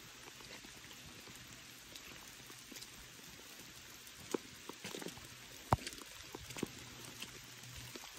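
Light rain falling, a soft steady hiss with scattered close raindrop taps; the sharpest tick comes a little past halfway.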